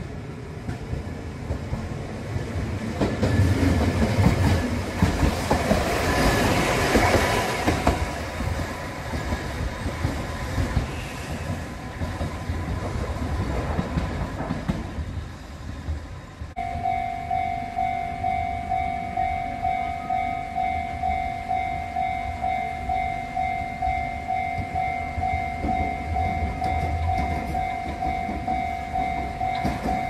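Kagoshima City tram running over the track at a level crossing, its wheels clattering over the rails, loudest a few seconds in and then fading. From about halfway, a level-crossing warning bell rings in a steady, evenly repeating ding.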